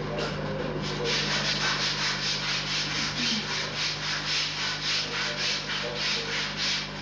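A brush scrubbed rapidly back and forth over wooden wall boards. It makes an even run of scratchy strokes, about three or four a second, starting about a second in.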